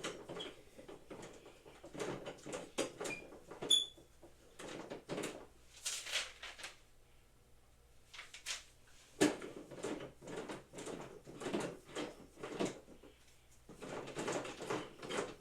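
Parts of boxing equipment being handled and fitted together during assembly: irregular clicks, knocks and rustling, with a short ringing clink about four seconds in.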